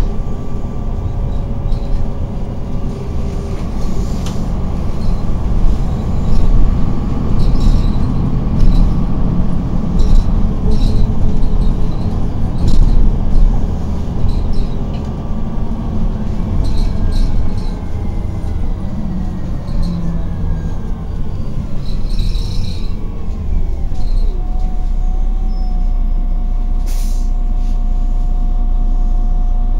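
Interior of a city bus on the move: engine and road noise with rattles from the bodywork. From about halfway through, whining tones fall in pitch as the bus slows, and after that a steady hum holds.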